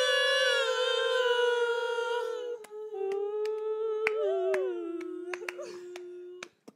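Young women's voices humming a long wordless held note into a microphone, dropping to a lower held note about two and a half seconds in that stops suddenly near the end. Sharp clicks, about two a second, run over the second half.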